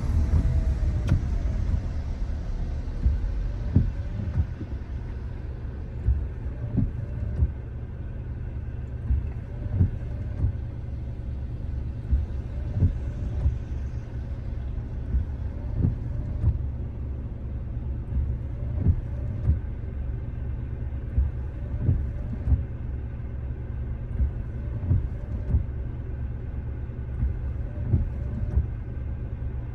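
Low, steady road rumble of a car driving, with frequent short thumps at irregular intervals; a higher hiss fades away over the first several seconds.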